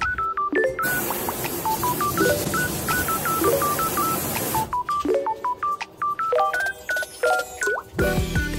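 Background music made of quick, short electronic beeps, like phone keypad tones, in a bouncy pattern. A steady hiss runs under it for the first few seconds.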